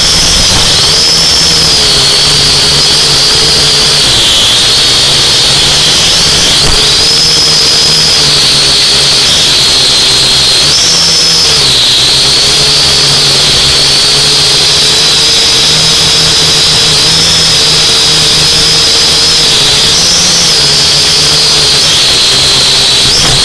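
Small radio-controlled drone's electric motors and propellers whining loudly as heard from its own onboard camera, the pitch rising and falling in step with the throttle as it flies.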